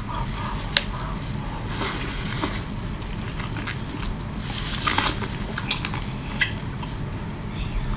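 Wet mouth sounds of a whole cooked octopus being stuffed into the mouth and chewed: squelching and sucking with scattered small clicks, over a low steady rumble.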